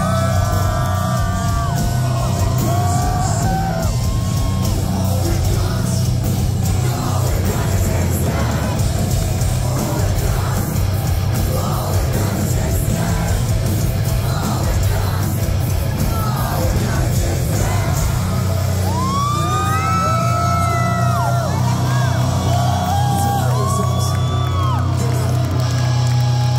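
Live heavy metal band playing loudly in a concert hall, heard from within the crowd: distorted guitars, bass and drums, with yelled voices over the top.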